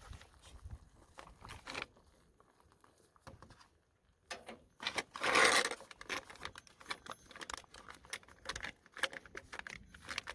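Freeze-dried meal pouch being handled: irregular crinkling, rustling and small clicks, with a louder rushing sound for about a second midway.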